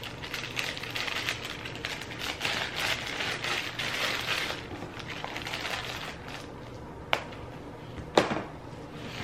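Packaging rustling and crinkling as items are handled during unboxing, with two sharp clicks near the end.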